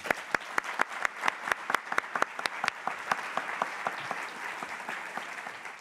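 Audience applauding, a dense steady clapping with sharper, louder single claps close by standing out above it.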